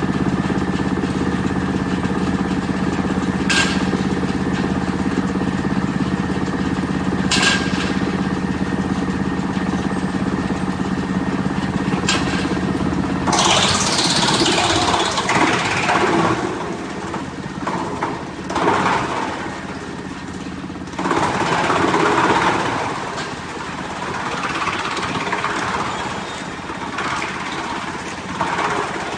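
Wood chipper running with a steady drone, with a few brief sharp knocks in the first half. From about halfway, wood is fed through and chipped in repeated loud, noisy surges that rise and fall.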